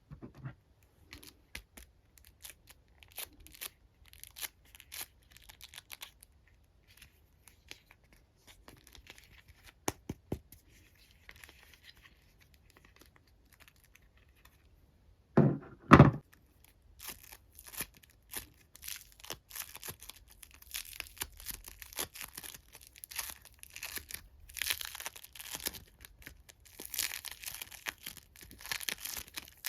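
Hands handling small toys and crinkly plastic: scattered scratches, crinkles and small clicks, with one loud thud about halfway through and denser crinkling near the end.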